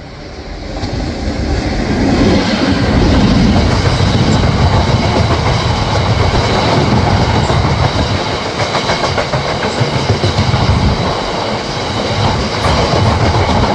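A train passing close by, its wheels running on the rails. The noise builds over the first two seconds and stays loud.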